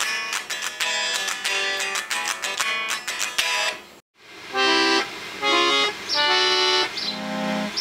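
Strummed guitar music that cuts off about halfway through. It is followed by a fan-blown reed chord organ with Farfisa reed boxes sounding four short held chords in a row, the last one lower.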